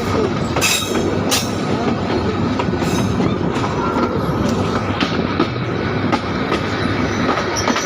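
Train running along the track, heard from on board: a steady rumble of wheels on rails with sharp, irregular clacks as the wheels cross rail joints.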